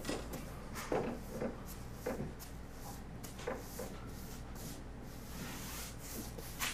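Paint brush stroking lime wash onto a plastered wall: soft rubbing brush strokes at an uneven pace, a few slightly louder than the rest.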